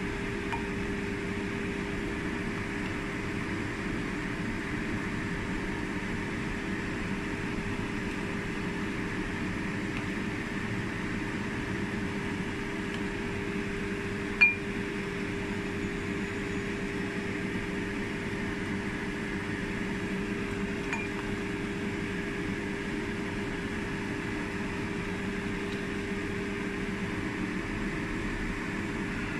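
Steady kitchen appliance hum, like a fan motor, over a soft hiss, with one sharp clink about halfway through as the ladle knocks against the serving bowl, and a couple of fainter clinks.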